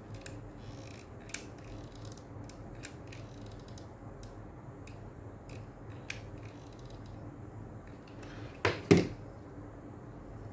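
Small scattered clicks and creaks from a hot glue gun being squeezed as glue is run along a fabric-wrapped headband. About nine seconds in comes a louder double thump with a rustle, as the headband is pressed against the stiffened fabric bow.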